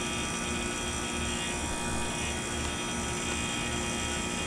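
1998 Trane XE1000 heat pump outdoor unit running steadily in its defrost cycle: an even mechanical hum made of several steady tones.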